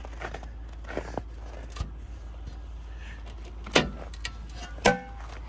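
Two sharp metallic clanks about a second apart near the end, from the metal cover of a campground electrical pedestal as an extension cord is unplugged, over the steady low hum of an idling pickup truck engine.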